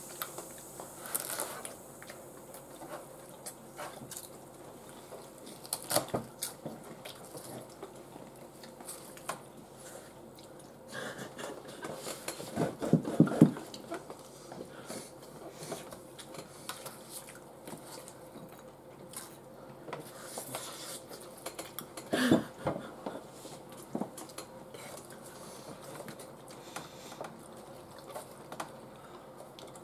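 Forks scraping and clinking on a baking tray as nachos are scooped up, with scattered clicks throughout and some chewing. There is a louder run of clatter about halfway through and another short burst a little later.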